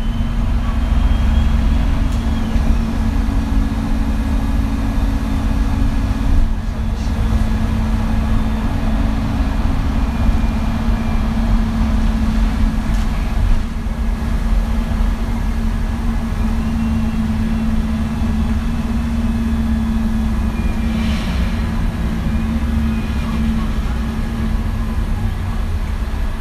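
MAN NG 313 articulated city bus idling at a standstill: its diesel engine runs steadily with a constant low hum.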